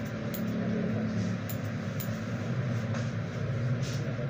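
Grooming scissors snipping through a dog's head fur a few times, sharp short clicks over a steady low mechanical hum.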